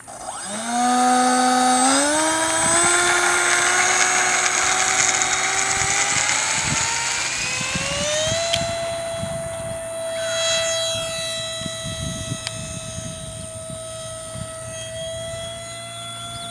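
Radio-controlled F-15 jet's 64 mm five-blade electric ducted fan, driven by a 4500 kV outrunner motor, spooling up to full throttle for takeoff. The whine starts about half a second in and rises in pitch, first in steps and then smoothly, until about eight seconds in. It then holds a steady high pitch and slowly gets quieter as the jet flies away.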